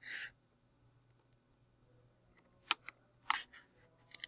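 Computer mouse clicking, three quick pairs of sharp clicks in the second half over quiet room tone, after a short hiss at the very start.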